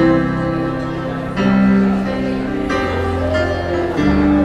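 Music playing, with held chords that change about every second and a half.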